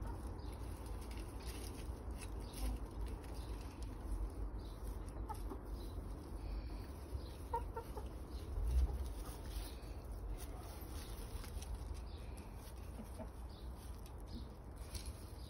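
Domestic hens clucking softly now and then as they forage, a few short clucks coming close together near the middle, over a steady low rumble. A brief low bump about nine seconds in is the loudest moment.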